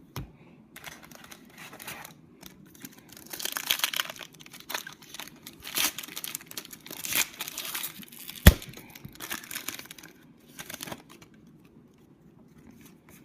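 A trading card pack wrapper being torn open and crinkled, with irregular rustling as the cards are handled. One sharp click about two-thirds of the way through is the loudest sound.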